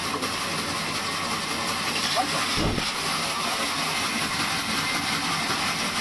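Large band saw running, its blade cutting through a block of cardboard air-cooler cooling pad with a steady hiss. A brief low thump about two and a half seconds in.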